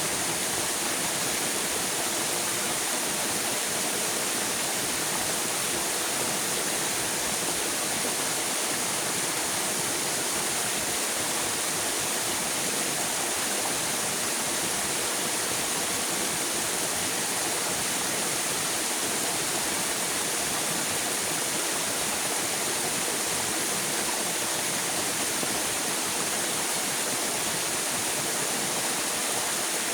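River water flowing and rushing steadily, an even hiss with no breaks or changes.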